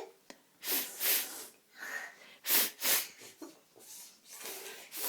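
A toddler's breathy huffs, mostly in quick pairs, a few times over.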